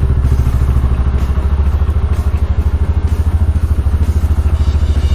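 Rusi Sigma 250 motorcycle engine idling steadily in a fast, even low pulse, its idle set slightly high so it won't stall.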